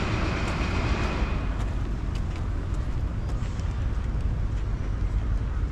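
Steady outdoor city rumble of a passing vehicle, its hiss dying away about a second and a half in, with faint footsteps ticking on the paved path.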